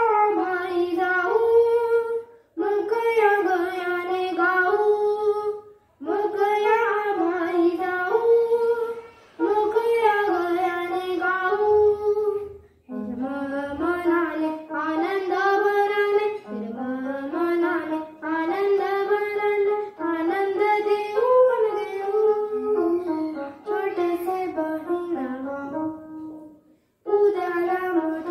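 A boy singing a Marathi children's poem in about eight short melodic phrases with brief breaths between them, playing along on an electronic keyboard.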